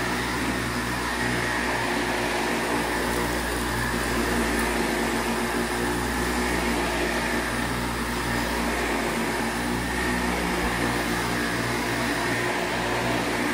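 Windsor Versamatic upright vacuum cleaner running steadily, a constant motor hum with a high whine over it.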